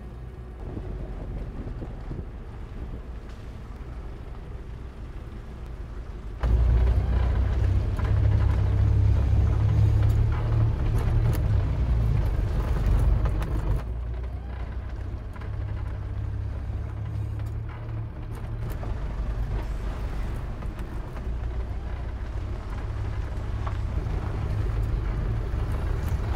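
Iveco 4x4 van's diesel engine and tyres on a gravel track, heard from inside the cab: a low rumble, fairly quiet at first, that gets suddenly louder about six seconds in and eases a little in the second half.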